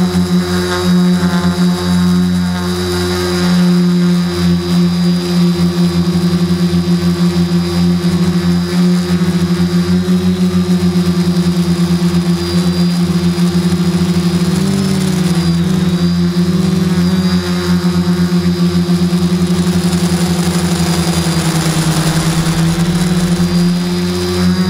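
Q450 quadcopter's brushless motors and propellers, heard through the camera mounted on the drone: a steady, fluttering hum with a high whine above it, the pitch wavering briefly around the middle and again near the end.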